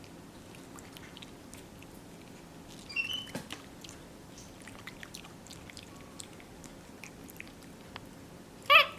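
Capuchin monkey chewing soft, ripe mango, with faint scattered wet clicks and smacks. A brief high squeak comes about three seconds in, and a short, loud pitched cry just before the end.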